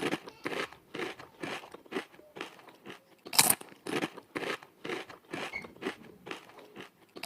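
Ringneck parakeet biting and chewing an almond: a run of short, crisp crunches about two a second, one louder crack about halfway through.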